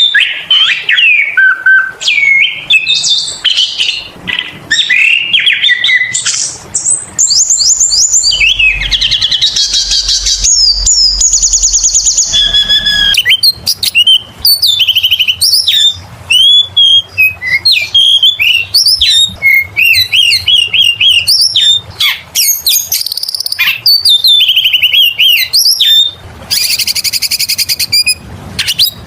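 Oriental magpie-robin (kacer) singing nonstop in full song: a fast, varied run of whistled notes and slurred phrases. Harsh, rapid rattling passages come about a third of the way in and again near the end.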